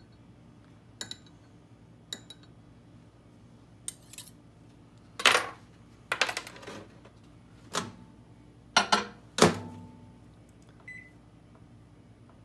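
A glass measuring cup and metal tools clinking and knocking on a wooden tabletop, about ten separate knocks with two louder ones, followed by a single short high beep near the end.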